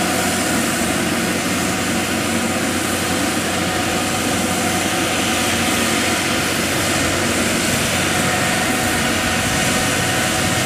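Kubota DC70 combine harvester's diesel engine running steadily as the machine drives on its rubber tracks, an even drone with no change in pitch or level.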